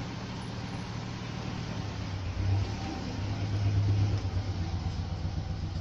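Low engine hum, steady, swelling louder twice around the middle.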